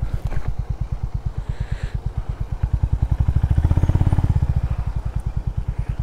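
Honda CB350RS's single-cylinder engine running at low revs as the motorcycle rolls slowly, an even beat of about ten exhaust pulses a second. It swells louder about three seconds in, then eases back.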